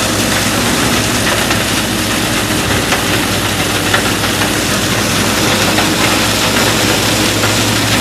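Minneapolis-Moline U302 Super tractor engine running steadily under load while a Ford 917 flail chopper behind it shreds corn stalks: a dense, steady mechanical din with a few sharp ticks of debris.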